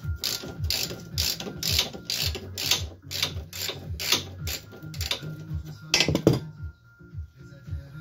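Hand ratchet wrench clicking in quick back-and-forth strokes, about two or three a second, as a front-suspension nut is undone, then a louder metallic clatter about six seconds in. Background music with a beat plays underneath.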